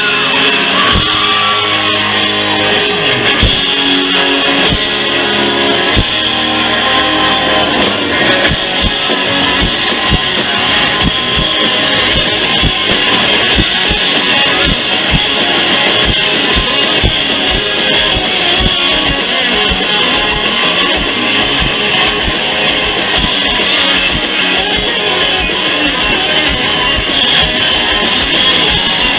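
Live band playing an instrumental passage: strummed guitars over a steady drum beat, loud throughout.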